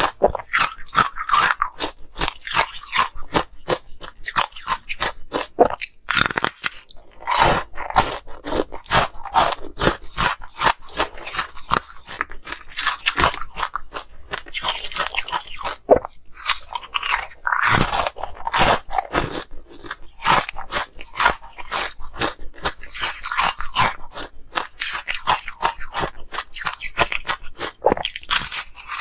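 Close-miked biting and crunching of hard ice pieces, sharp crunches coming several times a second with a couple of brief pauses.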